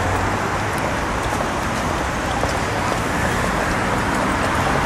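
Steady traffic noise from a busy city road: a constant rush of passing cars with no single event standing out.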